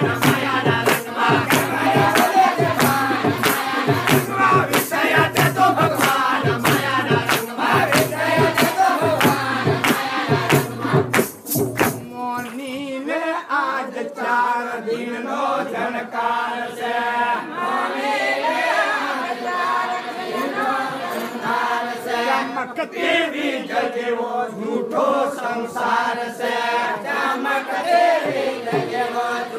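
Gujarati devotional bhajan: a group of voices sings with a fast, steady drum beat. About twelve seconds in the drumming drops away, leaving the group's singing with lighter accompaniment.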